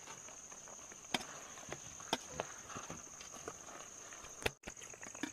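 Crickets chirring at night in one steady high tone, with a few faint sharp clicks, the loudest about one and two seconds in, as food is served by hand from a steel pot.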